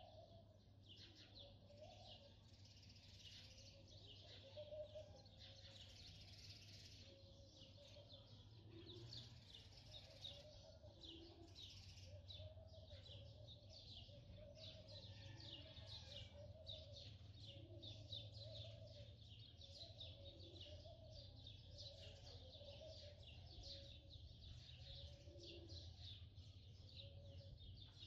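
Faint birds chirping continuously, a dense chatter of short high calls with some lower warbling notes, over a steady low hum.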